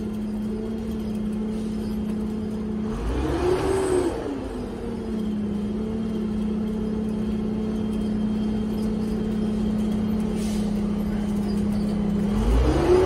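Engine and drivetrain of a 1981 Metro-Cammell Weymann double-decker bus running under way, heard from inside. A steady drone rises in pitch and falls back again twice: about three seconds in and near the end.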